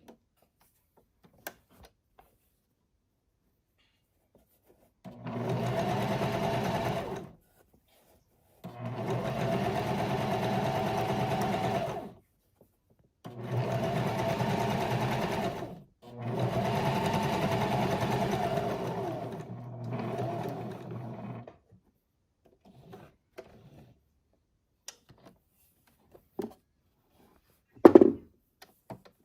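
Electric sewing machine stitching in several runs of two to four seconds each, with short pauses between them; the last run is quieter. Afterwards come a few small clicks and a knock near the end.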